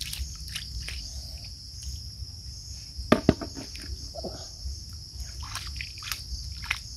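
Steady, high-pitched chirring of insects, with small splashes in shallow muddy water as hands dig for snails in the wet sand. A pair of sharp clicks comes about three seconds in.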